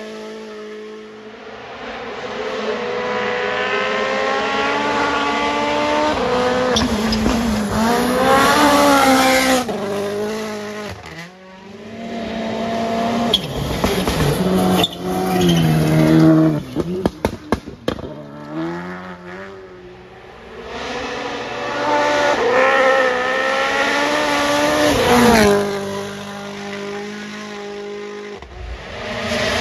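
Rally cars at full throttle passing one after another on a gravel stage, about three in turn. Each engine note climbs and drops in steps through the gear changes as it comes up, goes by and fades, with a quick run of sharp cracks in the middle.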